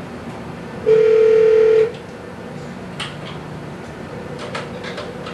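A telephone tone over the speakerphone, held steady for about a second as the computer dials the phone, then a few faint clicks.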